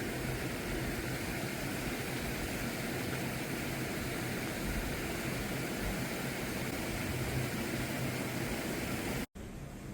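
Steady outdoor rushing noise with a faint low hum underneath, even in level throughout, cut off abruptly near the end.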